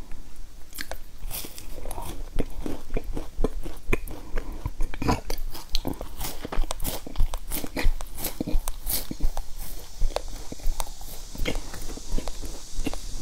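Biting and chewing a crunchy round sandwich biscuit: an irregular run of sharp crunches, several a second.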